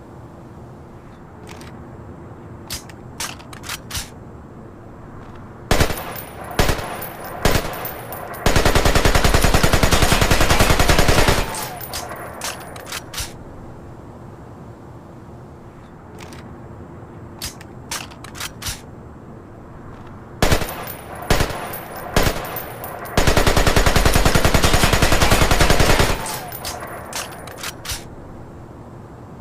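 AK-47 assault rifle (7.62×39 mm) firing: scattered single shots and a quick cluster of shots, then a continuous burst of fully automatic fire lasting about three seconds. The same sequence of shots and a long burst comes again about halfway through.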